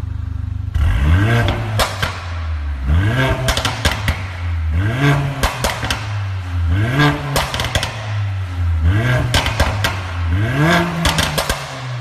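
Mercedes A45 AMG's turbocharged 2.0-litre four-cylinder through an aftermarket Armytrix valved exhaust, idling briefly and then blipped about six times, roughly every two seconds. Each rev climbs and falls back, followed by a burst of crackles and pops on the overrun.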